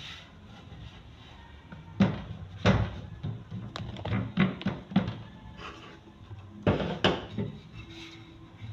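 A run of sharp knocks and thuds on a floured work table as wrapper dough is pressed flat by hand and a wooden rolling pin is taken up and set rolling. The loudest knocks come about two seconds in and again near seven seconds.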